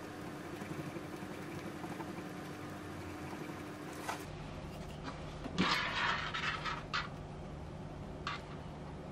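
Wooden craft stick stirring epoxy on a piece of cardboard: soft scraping, with a louder spell of scraping and handling noise about halfway through and a short click near the end.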